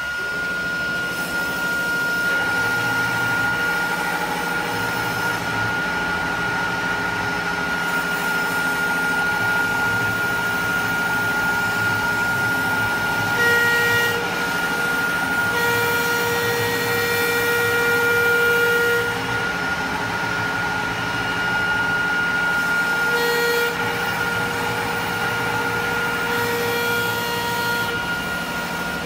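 AKM1325 CNC wood router's spindle running with a steady high whine as the bit cuts a wood board. Other motor tones come in and drop out several times as the head moves.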